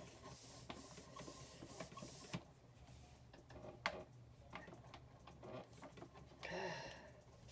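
Rubber stamp being inked against an ink pad: a faint, hissy scrubbing for the first couple of seconds, then a few soft clicks and taps as the stamp block is handled and pressed down.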